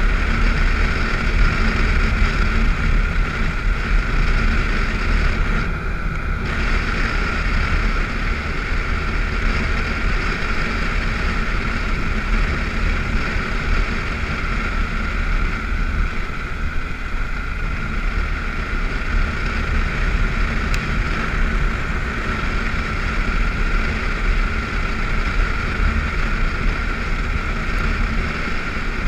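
BMW F650GS motorcycle running steadily at riding speed on a gravel road, with wind rushing over the microphone.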